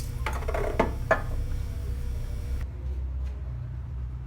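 Motorcycle exhaust being pulled free of its mount: a few light metallic clinks and knocks in the first second, over a steady low hum.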